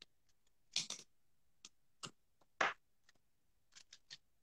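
Cut paper being handled and pressed together while gluing: a scatter of short, sharp rustles and light clicks, the loudest about a second in and twice more a little past halfway.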